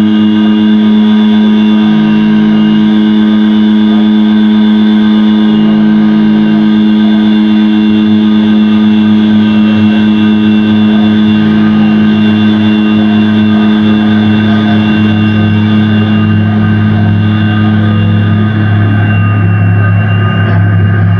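Loud electronic drone music: many steady tones held together, with a lower tone that comes and goes every few seconds. Near the end the lowest tone swells and the higher tones fade.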